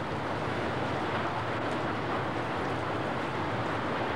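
Tornado winds buffeting a camcorder microphone, a steady rushing noise with no let-up.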